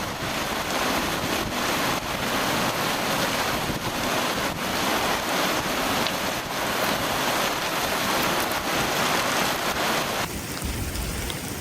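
Heavy rain and wind on the microphone, a loud steady hiss. It changes abruptly near the end to a quieter rain.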